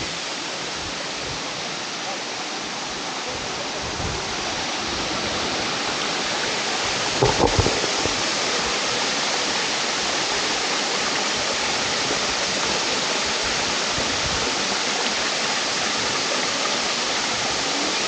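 Waterfall pouring, a steady loud rush of falling water that grows a little louder from about four to six seconds in. About seven seconds in there is one brief louder sound over it.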